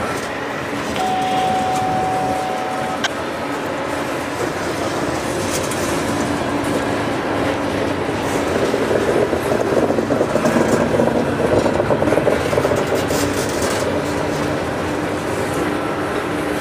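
Loaded coal hopper cars rolling slowly past on the rails, their wheels and trucks running steadily. A thin steady whine sounds from about one second in for two seconds, and the rolling grows louder around the middle.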